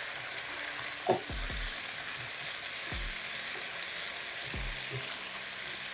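Sliced pumpkin sizzling steadily in hot oil in a frying pan while being stirred and tossed with a silicone spatula to mix in the soy sauce and salt.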